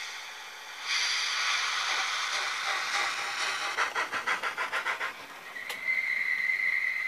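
Sound decoder of a Brawa model PKP Pt31 steam locomotive moving off: a loud hiss of steam, then quick chuffs about five a second, then a steady high tone near the end.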